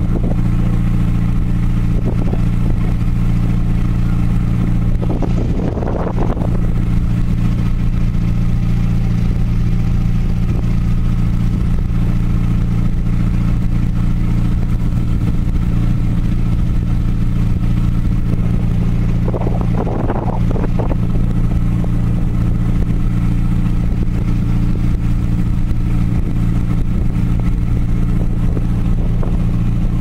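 Ferry's engine running with a steady low drone, with two brief rougher sounds about six and twenty seconds in.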